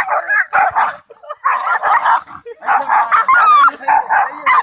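Dogs barking in dense bursts, with short breaks about a second and two and a half seconds in.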